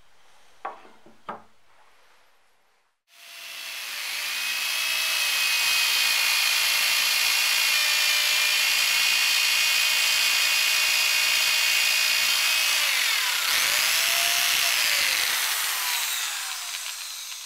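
Two light knocks, then an electric drill spins up and runs steadily as its bit bores a hole into a wooden block held in a vise, wood chips flying. Near the end the motor's pitch slides and the sound fades out.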